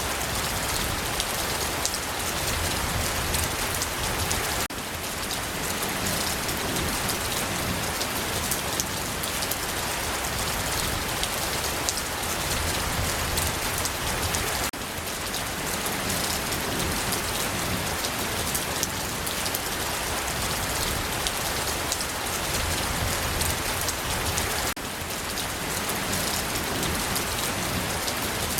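Steady rain falling, with the patter of many individual drops. There is a short dip in level about every ten seconds.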